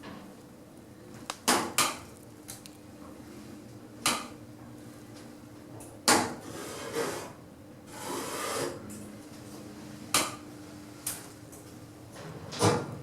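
1980s service lift working: a series of sharp clunks and clicks, with two short sliding rumbles in the middle, over a steady low hum.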